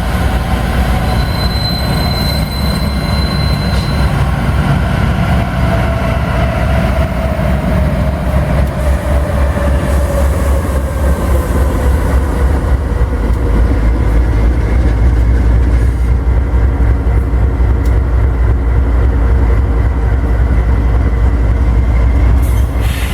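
A train rolling past at close range: a heavy, steady rumble of locomotives and wagons on the rails. A thin high wheel squeal sounds in the first few seconds, and a tone slowly drops in pitch in the middle.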